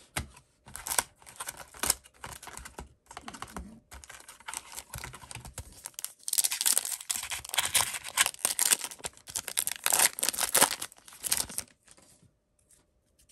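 Hands tearing open and crinkling the wrapper of a hockey trading-card pack and handling the cards: irregular crackles and rustles, busiest past the middle, stopping near the end.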